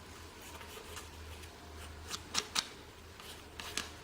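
A few light clicks and knocks of small metal lathe-apron parts being handled: two sharp clicks a little over two seconds in and two more near the end, over a steady low hum.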